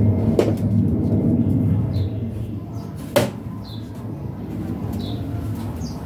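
Two sharp knocks from the plastic top cover of a washing machine being handled, a lighter one about half a second in and a louder one about three seconds in, over a steady low rumble.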